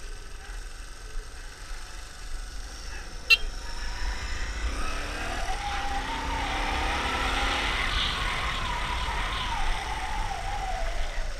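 Small motorcycle engine running as the bike is ridden over gravel. Its pitch climbs from about four seconds in, holds, then drops off near the end, over a low wind rumble. There is a single sharp click a little after three seconds in.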